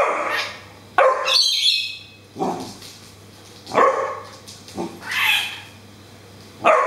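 Great Dane puppy barking repeatedly at a lorikeet, about six short barks spread over several seconds, with the lorikeet's high squawking chatter about a second and a half in.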